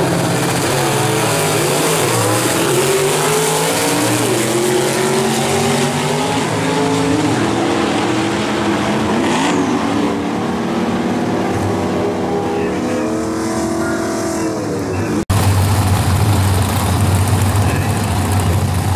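Two vintage gasser drag cars launching and running down the drag strip, their engines climbing in pitch and dropping back several times as they shift through the gears. About fifteen seconds in, a sudden cut gives way to the next pair of cars' engines idling steadily at the start line.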